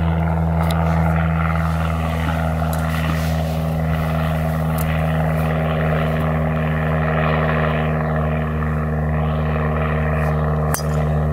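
A steady low mechanical hum of several fixed, unchanging tones. About eleven seconds in, one sharp crack as a golf driver strikes the ball off the tee.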